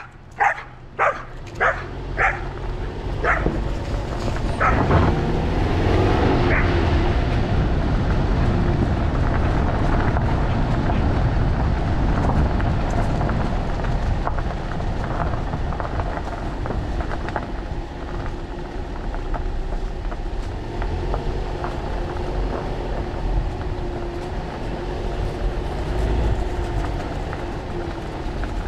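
A dog barks about six times in quick succession, roughly two barks a second, then stops. A steady low rumble with a faint wavering tone in it carries on for the rest.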